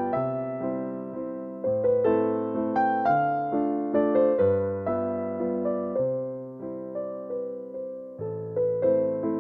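Background piano music: gentle struck notes that die away, over low notes that change about every two seconds.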